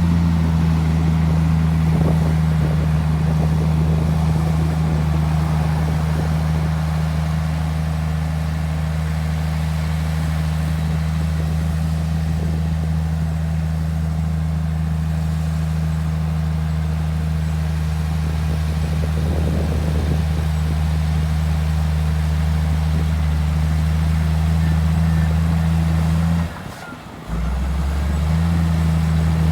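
Heavy diesel earthmoving machinery running steadily with a deep, even drone. About three seconds before the end it cuts out abruptly for about a second, then resumes.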